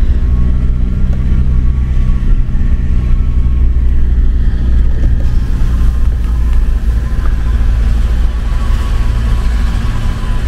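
Camper van driving along, its engine and road noise making a steady low drone.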